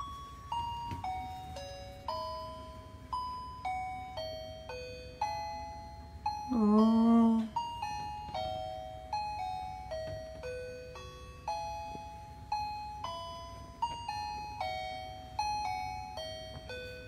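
A simple electronic Christmas-style melody of clean, bell-like chime notes, about two a second, each note fading away. About midway a person's voice gives one short, loud vocal sound with a rising start, lasting about a second.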